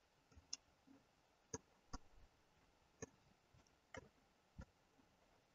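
Near silence broken by about six faint, irregularly spaced computer mouse button clicks.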